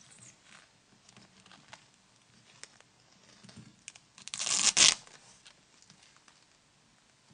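Small clicks and rustles of hands handling a Nokia 9300i handset, with one loud rustling rasp lasting just under a second about four seconds in.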